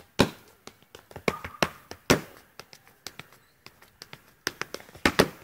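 Shoes tapping and stamping on a tiled pavement in dance footwork: a quick, uneven run of sharp taps with louder stamps about every two seconds, and a double stamp near the end.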